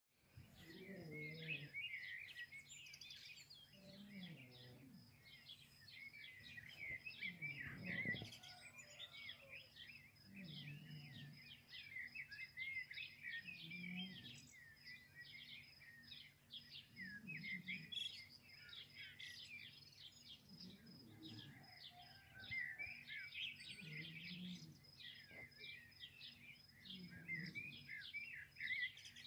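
Many songbirds chirping and singing at once in a continuous chorus of quick high chirps, with a soft low sound returning about every three seconds underneath.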